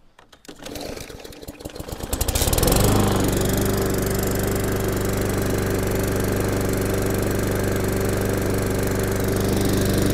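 Victa lawn mower's four-stroke engine starting: uneven firing builds over about two and a half seconds to full running speed, then holds one even, steady note without hunting up and down. This is the sign that the surging has been cured by cleaning the carburetor.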